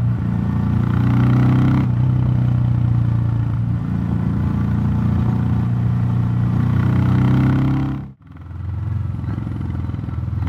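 Royal Enfield Classic 350 Reborn's 349 cc single-cylinder engine running under way, fitted with a DNA Stage 2 performance air filter, with a bassy note. Its pitch climbs and then drops about two seconds in. The sound cuts out abruptly a little after eight seconds and comes back.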